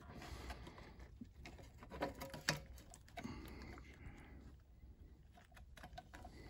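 Faint clicks and rustling of small plastic wire connectors being wiggled out of the sockets on an Ender 3 V2's mainboard, with a sharper click about two and a half seconds in.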